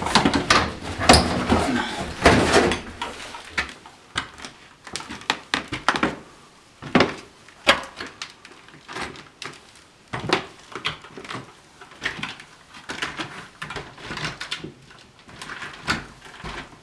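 Irregular footsteps and knocks on old wooden stairs, heavier and denser for the first few seconds, then sparser single steps.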